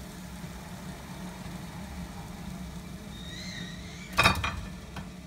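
A metal spoon clinking against a steel pot of frying oil: a quick cluster of knocks about four seconds in, over a steady low hum.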